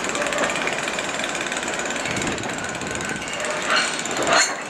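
Class 08-type diesel shunter's English Electric six-cylinder engine running with a rapid, even clatter as it moves off slowly with a wagon. Two louder knocks come near the end.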